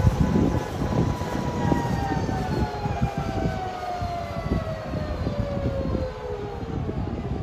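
Bell CH-146 Griffon helicopter's twin turboshaft engines winding down: a whine that falls steadily in pitch, over irregular low whooshes from the slowing main rotor.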